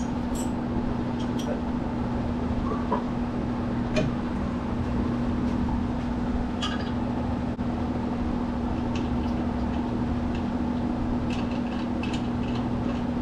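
A steady machine hum with a low tone, under scattered light metal clinks and taps from a shock absorber being compressed and fitted to its axle mount.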